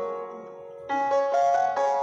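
Background music played on a piano-like keyboard: a held chord dies away for about the first second, then a quick run of single notes follows.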